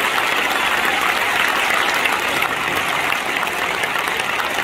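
Large stadium crowd applauding: dense, steady clapping that eases slightly about halfway through.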